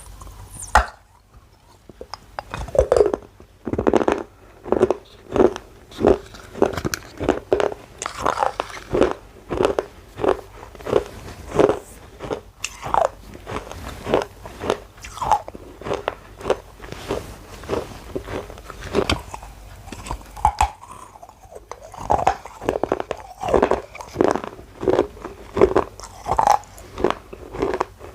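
A person biting and chewing pieces of baked clay pot, a run of crisp crunches coming about once a second, with a short lull near the start and another about two-thirds of the way through.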